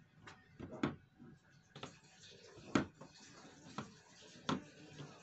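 Light clicks and taps of small candies and hands on a plastic table and plastic bowls, about six at an irregular pace. The loudest comes a little before the middle.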